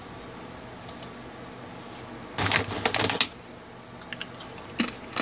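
Laptop keyboard and touchpad clicks over a steady high hiss. Two light clicks come first, then a short burst of rapid tapping about two and a half seconds in, then a few scattered clicks near the end.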